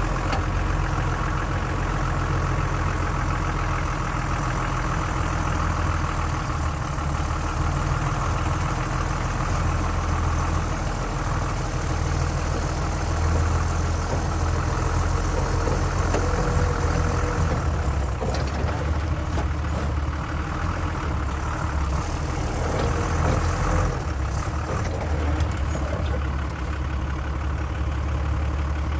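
Diesel engine of a Renault 4x4 truck running steadily at low revs as the truck crawls over a mound, twisting its chassis. A few short knocks come through about halfway and again later.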